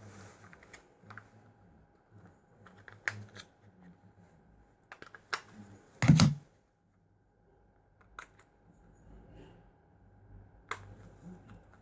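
Small hard objects being handled and set down: scattered clicks and taps, with one louder thump about six seconds in, over a faint steady hum.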